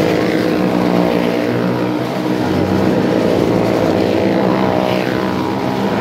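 Engines of the stunt vehicles running hard as they circle the wooden wall of a well of death: a loud, steady drone.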